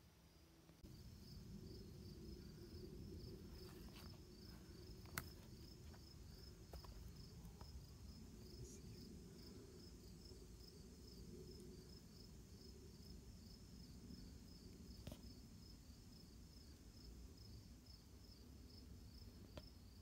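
Faint insects chirping in a steady pulsing rhythm, a few pulses a second, over a low rumble, with a couple of sharp clicks.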